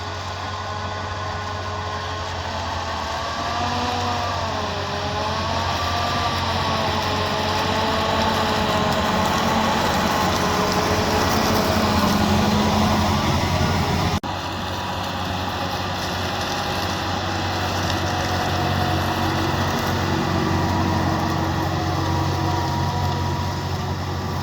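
John Deere 7280R tractor's six-cylinder diesel engine running steadily while pulling a plough. Its pitch wavers a few seconds in and it grows louder toward the middle. The sound cuts off abruptly about 14 s in and goes on with the engine still running.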